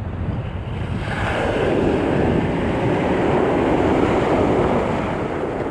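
A wave breaking and washing up the shore, a rush that swells about a second in and fades near the end, over a steady low rumble of wind on the microphone.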